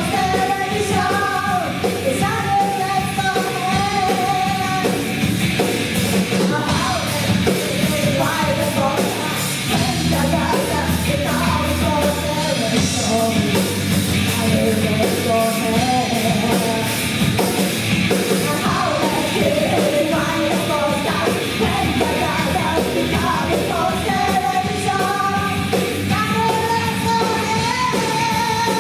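Rock band playing live: a female lead singer's sung melody over electric guitars, bass guitar and drum kit.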